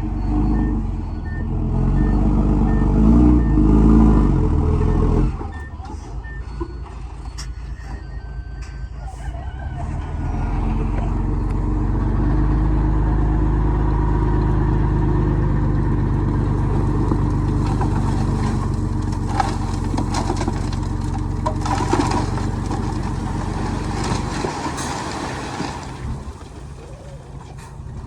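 Heavy diesel construction machinery running under load, with a reversing alarm beeping repeatedly over the first several seconds. A few metallic knocks come later, and the engine eases off near the end.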